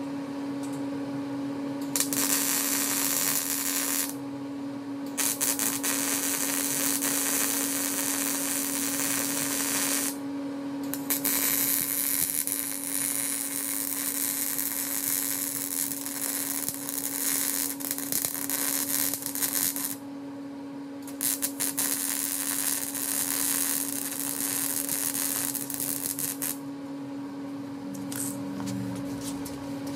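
Electric arc welding on steel: the arc crackles and sizzles in four runs of a few seconds each, with short pauses between, over a steady low hum.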